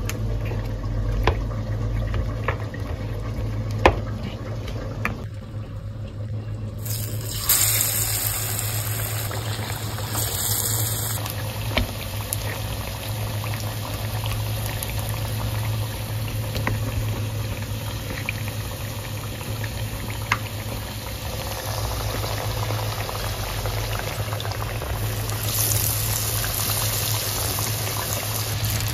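Batter-coated pumpkin slices sizzling as they deep-fry in hot oil in a pan, the sizzle growing louder near the end. In the first few seconds a spoon clicks against the batter bowl, and a steady low hum runs underneath.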